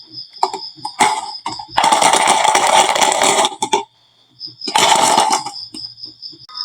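Glass marbles rolling and clattering down a wooden marble run, with single sharp clicks of marbles striking the track between three longer stretches of dense rattling.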